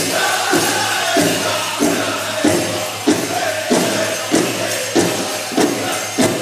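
Powwow drum group singing a chicken dance song: high voices over a big drum struck in a steady beat, about three strokes every two seconds.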